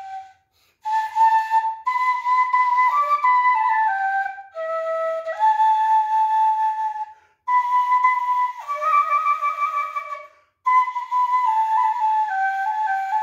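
Vietnamese bamboo flute (sáo trúc) played solo: a melody of held and stepping notes in phrases broken by short breath pauses, with notes sliding down between pitches and a wavering vibrato on the held notes near the end.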